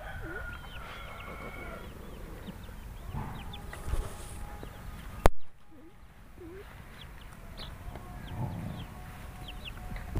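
Chickens calling in the yard: clucking, with many short high peeps repeating throughout. A single sharp click about five seconds in.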